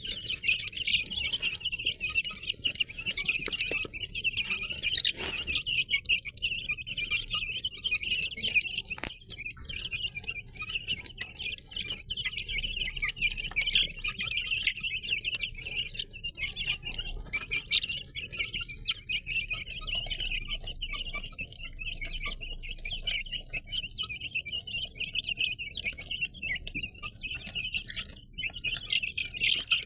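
A large crowd of chicks peeping continuously, many high-pitched cheeps overlapping into a dense chatter.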